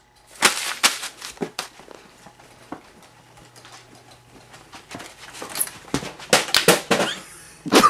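Scattered knocks and rustles from people moving about and the camera being handled, sharpest about half a second in, sparse in the middle, then a quick cluster near the end.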